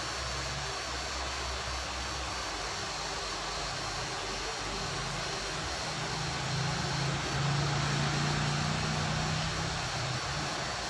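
Pen-style tattoo machine buzzing steadily as its needle is worked over the lips, its hum getting a little louder for a few seconds past the middle.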